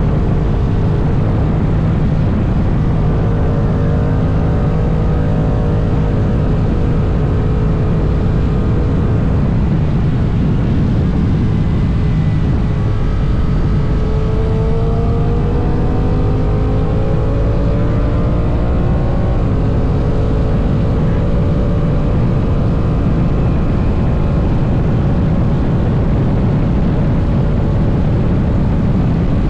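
Honda NT1100's parallel-twin engine running at highway speed under a heavy rush of wind noise. Its note rises gradually about halfway through as the bike accelerates.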